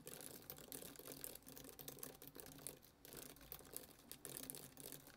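Faint typing on a computer keyboard: quick, irregular key clicks.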